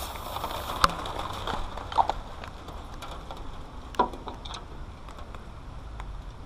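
Three sharp knocks or clinks, about a second, two seconds and four seconds in, from hand work on the excavator's hydraulic lines and fittings, over a low steady rumble.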